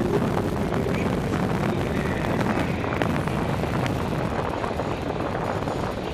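Steady rush of air on a moving microphone together with the hum of track-bike tyres rolling on wooden velodrome boards at speed.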